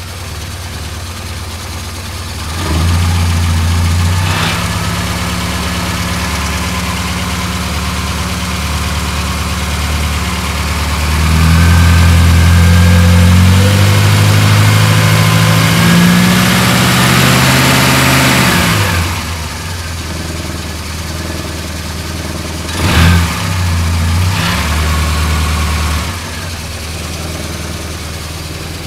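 A 1970 Morris Minor's 1098cc A-series four-cylinder engine running with the choke fully in, revved up and held three times and dropping back to idle between, the longest and loudest rise in the middle.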